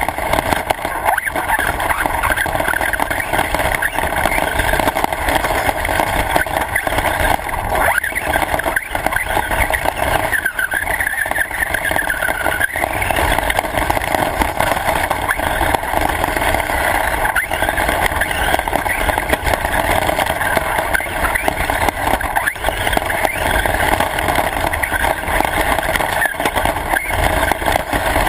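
Radio-controlled car driving, its motor running with a pitch that rises and falls a little, over constant rolling noise.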